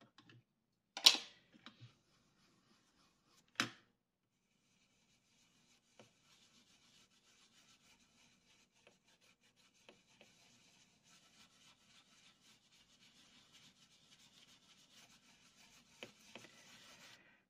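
A foam blending brush rubbing ink onto card stock through a stencil: a faint, steady, scratchy swishing that runs from about four seconds in until just before the end. Before it come two sharp knocks, the first the louder, about one and three and a half seconds in.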